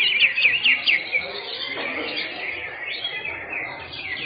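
Several greater green leafbirds (cucak hijau) singing at once in quick chirped and whistled phrases, with a fast run of sharp chirps in the first second.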